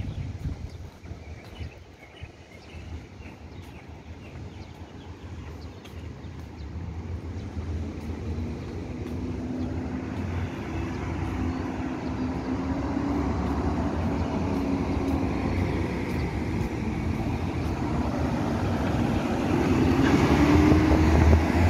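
Motor vehicle engine humming and growing steadily louder through the second half as it draws nearer, over a low rumble of wind on the microphone.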